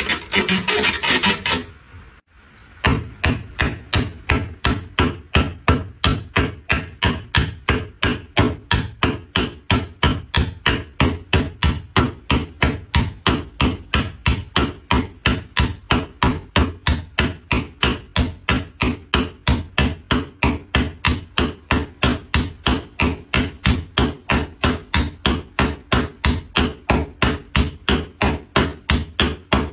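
A short rasping scrape, then steady, even hammer blows on wood, about three a second.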